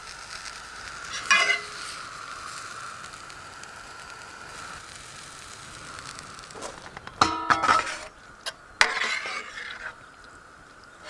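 Runner beans sizzling in a hot pan as they are stirred into tomato sauce. A steady sizzle fills the first half, and in the second half a utensil knocks and scrapes against the pan in two short clusters.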